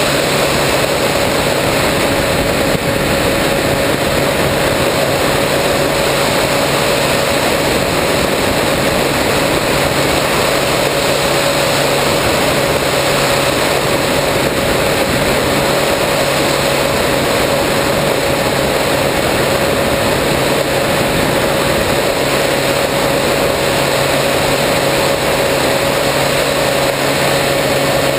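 Electric motor and propeller of an RC airplane running steadily, heard from a camera mounted on the plane: one steady whine over a broad rush of air noise.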